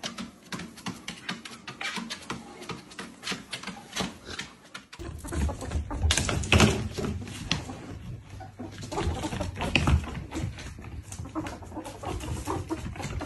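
A dog's claws clicking as it walks on a walking-pad treadmill; then, from about five seconds in, two ferrets hopping and scuffling on a wooden floor, with rapid clicks and short animal sounds over a low hum.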